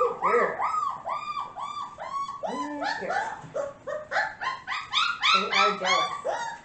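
Young puppies, about four to five weeks old, whining and yelping in a rapid string of short high cries that rise and fall in pitch; from about halfway several voices overlap at different pitches.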